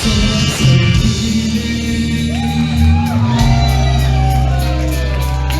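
Live punk band playing loudly, guitars and bass with shouted singing over them.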